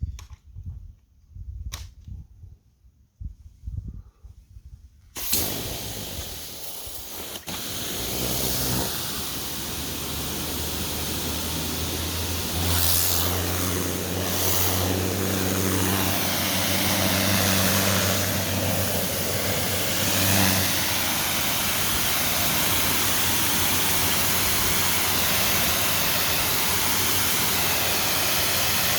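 A few handling clicks, then about five seconds in a pressure washer starts spraying through a turbo (rotating) nozzle with a loud, steady hiss of high-pressure water. Under it the machine's motor hum rises in pitch as it takes the load and fades back under the spray after about twenty seconds.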